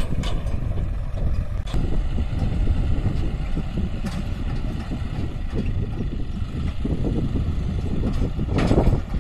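John Deere 5104 tractor's diesel engine running, a steady low rumble with a rough edge, swelling louder briefly near the end.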